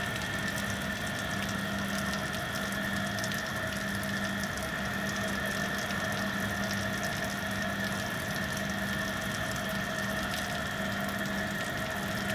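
Steady, water-like rushing noise with a steady low hum running under it.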